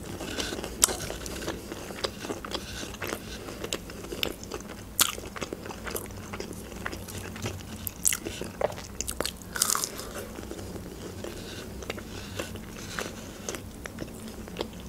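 A person chewing breaded chicken nuggets close to the microphone, with irregular crisp crunches and small mouth clicks throughout.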